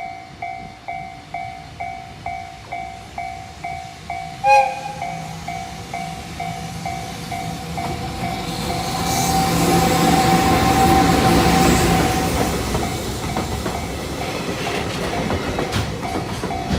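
Japanese level-crossing electronic warning bell ringing about twice a second. About four and a half seconds in comes a short horn blast from an EF210 electric locomotive. The locomotive, hauling a container freight train, then passes, its noise swelling to a peak midway, with wheels clacking over the rail joints near the end while the crossing bell keeps ringing.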